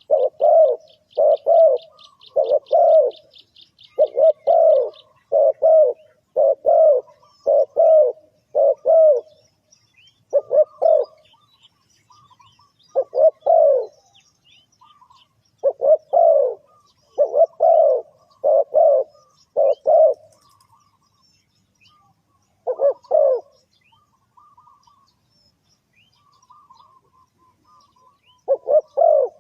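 Spotted dove cooing: runs of low, repeated coo notes broken by pauses of a few seconds. A rapid, high ticking trill from another small bird or insect runs through the first few seconds, and faint high chirps are scattered throughout.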